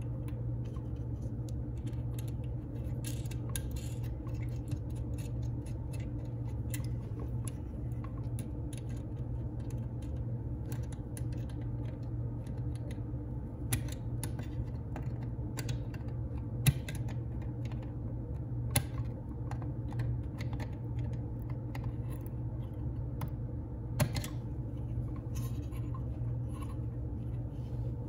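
Small metal parts (terminals, a washer and nuts) handled on the stamped-steel back plate of an instrument cluster: scattered light clicks and taps, with a few sharper clicks, over a steady low hum.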